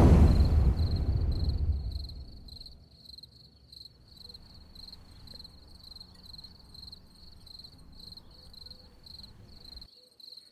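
A deep, loud whoosh swells and fades away over the first two seconds, then crickets chirp steadily at about three chirps a second over a faint night hiss.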